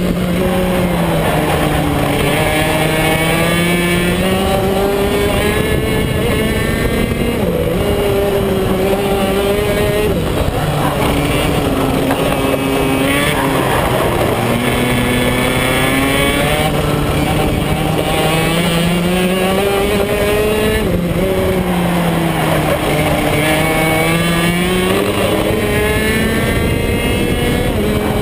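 BMB KF2 125 cc two-stroke kart engine at race pace through a lap. Its pitch drops several times as it slows for corners and climbs again as it pulls back out of them.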